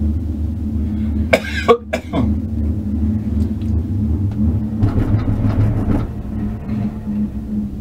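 Steady low hum and rumble of a gondola lift cabin riding up the haul rope, heard from inside the cabin. A short loud burst, like a cough, cuts in about a second and a half in, and around five seconds in a rougher rumble swells for about a second as the cabin runs past a support tower.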